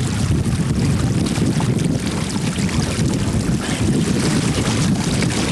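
Wind rumbling on the microphone over running water, with a hooked salmon splashing as it thrashes at the surface beside the boat.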